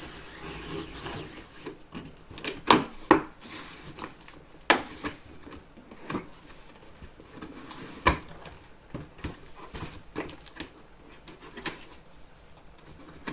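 Long cardboard shipping box being opened and handled by hand: scraping and rustling of cardboard with scattered sharp knocks, the loudest about three, five and eight seconds in.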